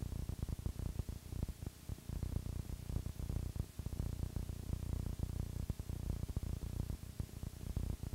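Steady low rumbling crackle with a hum underneath: playback noise from a blank stretch of an old tape transfer.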